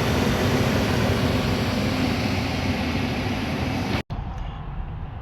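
90% gas furnace running again, burners lit and blower going, a loud steady rush of air and burner noise after a clog of water in the flue was cleared. It cuts off abruptly about four seconds in, leaving a much quieter background.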